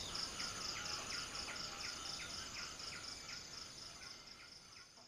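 Forest ambience of an insect chorus: a steady, fast-pulsing high trill with short chirps repeating about three times a second beneath it, fading gradually away.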